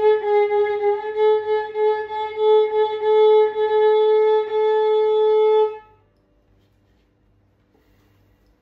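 An old, cheap violin bowed by a beginner: a short note, then a step higher to one long held note that stops about six seconds in.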